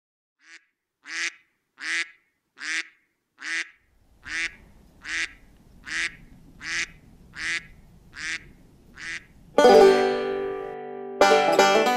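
A duck quacking in an even series of about a dozen quacks, roughly three every two seconds. Near the end a loud musical chord rings out and fades, then banjo music starts.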